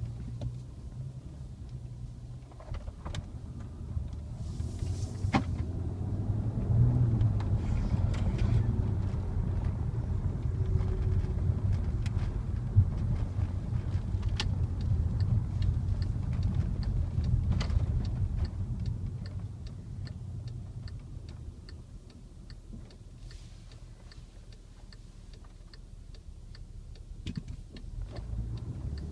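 Volkswagen Passat R36's stock 3.6-litre VR6 engine and exhaust while driving, a low rumble that grows louder a few seconds in, eases off after about eighteen seconds and picks up again near the end. Light ticks are scattered over it.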